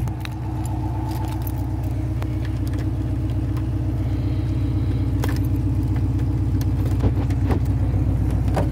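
Camaro's swapped-in 6.0 V8 idling steadily, with a few light clicks over it.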